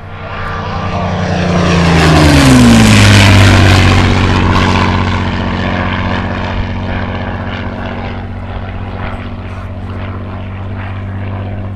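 Large radio-controlled model aircraft making a fast low pass: its engine and propeller swell to a loud peak two to four seconds in, the pitch dropping as it goes by, then run on steadily and quieter.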